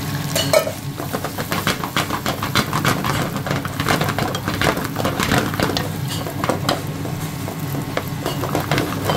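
Sliced onions and peppers sizzling in oil in a non-stick frying pan, stirred with a wooden spatula that scrapes and taps against the pan over and over.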